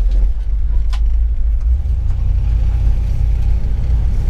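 Cabin sound of a 1956 Dodge Sierra wagon under way: a low, steady rumble of its 315 V8 and the road, with a couple of light clicks near the start and about a second in.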